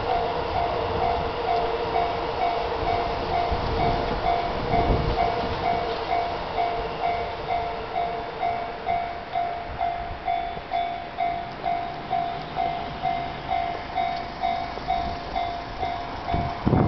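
Japanese railway level-crossing warning bell ringing its steady kan-kan beat, about two strikes a second, over the running noise of a passing train, which is heaviest in the first half and then thins out.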